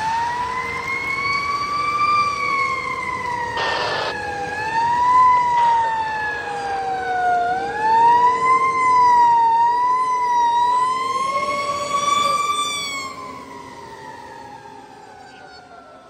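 Fire engine siren wailing, its pitch rising and falling over and over. After about thirteen seconds it slides steadily lower and fades as the truck drives away.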